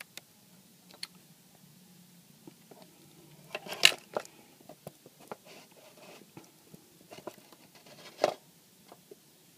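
Handling noise on a workbench: scattered small clicks and taps, with two louder clattering knocks about four seconds in and again about eight seconds in, over a faint low hum.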